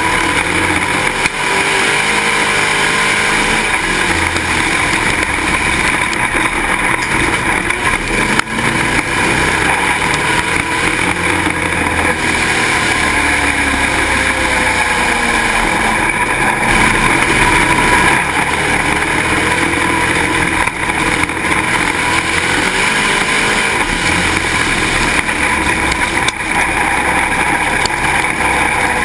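Pro Stock dirt-track stock car's engine running hard through laps. Its pitch rises and falls over and over as the driver lifts into the turns and gets back on the throttle down the straights. It is picked up close by an onboard camera mounted on the car.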